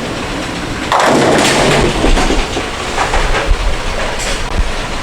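Bowling ball rolling down a lane, then a loud clatter of pins being struck about a second in, followed by a few scattered knocks over the steady rumble of the alley.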